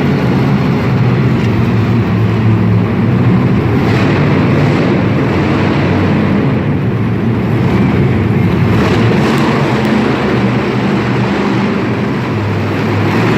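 Vehicle engine running loud and steady, likely the engine of a monster truck or stunt motorbike.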